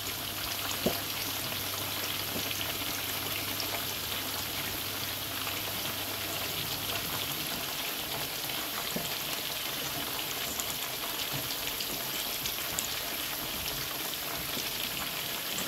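Masala for chicken roast frying in oil in a pan: a steady sizzle with fine crackles.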